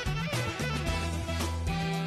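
Music with a steady beat and a deep, prominent bass line.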